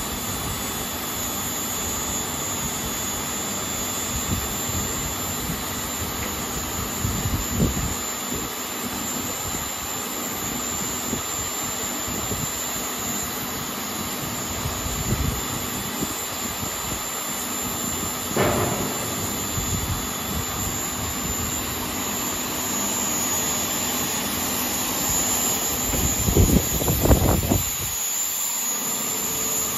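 Polypropylene melt-blown filter cartridge machine running: a steady hiss and hum of its blowers and motors, with a few short knocks about 7 and 18 seconds in and a louder cluster of them near the end.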